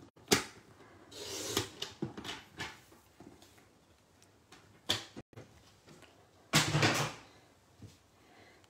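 A plastic paper trimmer and cardstock being handled: a sharp clack near the start, then paper rustling with a few light clicks. About two-thirds through comes a louder rustling slide as the trimmer is moved off the craft mat.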